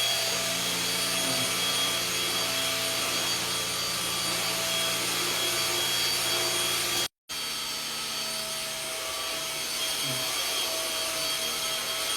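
Cordless vacuum cleaner running steadily: a constant motor hum with a steady whine over the rush of air. The sound cuts out for a moment about seven seconds in.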